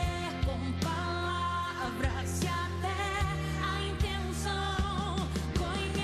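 A woman singing a gospel worship song into a microphone over a backing band with bass and drums, holding long wavering notes.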